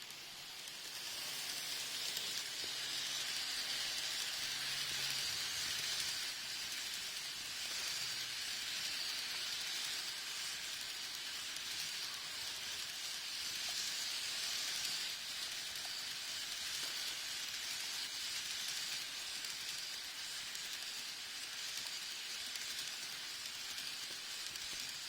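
N-gauge model freight train behind an EF210 electric locomotive model running along the track: a steady rolling hiss of wheels on rail and motor, building over the first couple of seconds.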